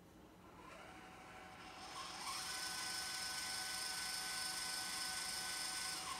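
Losmandy GM811G telescope mount's motors slewing: a high mechanical whine that ramps up about half a second in, gets louder about two seconds in and holds a steady tone, then winds down near the end. Heard in an echoey indoor room, which brings out the higher parts of the whine.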